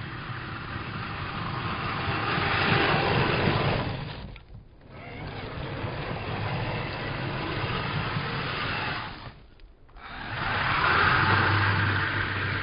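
Kyosho Blizzard SR radio-controlled tracked snow plow driving and pushing snow, its motor and tracks running, slowed to a third of normal speed. The sound swells and twice drops away briefly, about four and a half and nine and a half seconds in.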